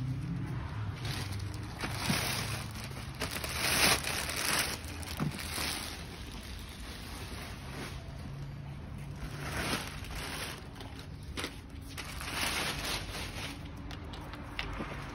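Clear plastic wrapping rustling and crinkling in bursts as the parts of a kids' ride-on quad bike are unwrapped and handled, over a low steady hum.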